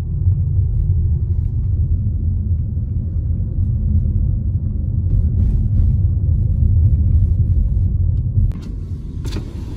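Steady low rumble of a moving car, heard from inside the cabin: road and engine noise, turning quieter about eight and a half seconds in.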